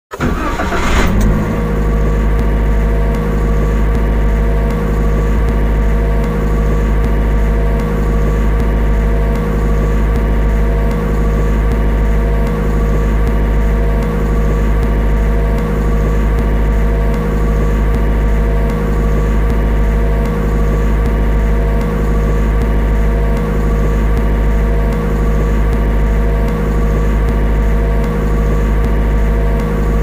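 Cold car engine starting within the first second, then settling into a steady idle.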